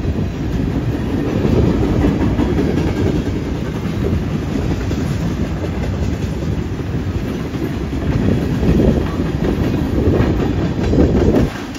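Freight train cars rolling past close by, their steel wheels rumbling and clacking on the rails in a steady din that swells several times, then drops off sharply just before the end.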